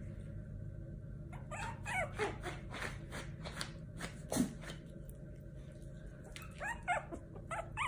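Yorkshire terrier puppies yipping and squeaking in short high-pitched calls, a run of them with clicks about a second and a half in and more near the end, over a steady low hum.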